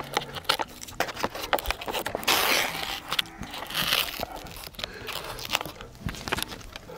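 Close-up eating sounds from a cup of yukgaejang instant noodles: chewing and slurping, with many small mouth clicks and a longer, louder slurp a little over two seconds in.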